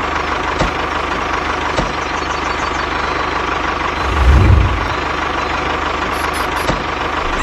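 A small machine's motor running steadily, with a low thump about four seconds in.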